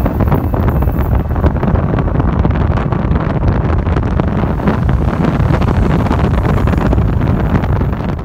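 Wind buffeting the microphone over the steady low rumble of a moving vehicle.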